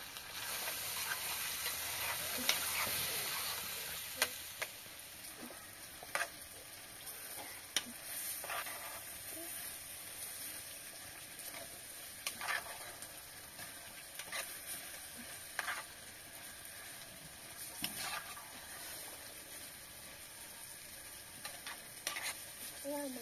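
Food frying in a pan, sizzling steadily, with scattered short clicks and scrapes every second or two.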